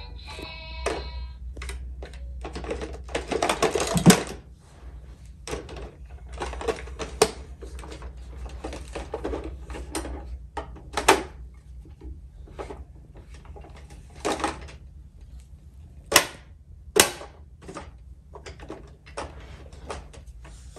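Plastic toy fire truck being handled and turned over by a toddler: irregular clicks, rattles and knocks, with a rattling stretch ending in the loudest knock about four seconds in, and sharp clicks about sixteen and seventeen seconds in.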